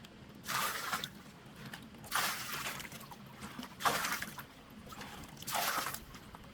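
Water splashing in four regular strokes, about one every 1.7 seconds.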